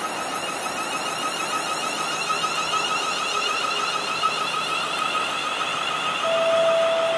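London Midland Class 350 Desiro electric multiple unit running away along the platform, its traction equipment giving a steady whine. About six seconds in, a louder two-tone train horn begins, its high note falling to a lower one.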